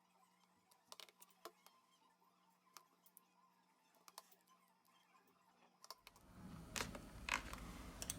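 Faint scattered clicks and light scrapes of a plastic opening tool prying along the Samsung A70's glued back cover, loosening its adhesive; about six seconds in the handling gets louder, with a run of sharper clicks.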